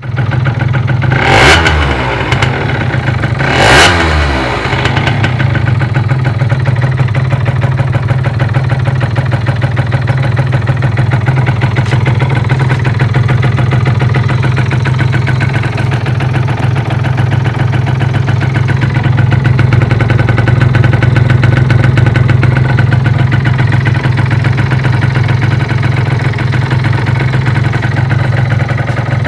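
Derbi Euro 3 two-stroke moped engine blipped twice in quick succession, then idling steadily with a metallic clatter in its running, which the owner suspects is a bearing.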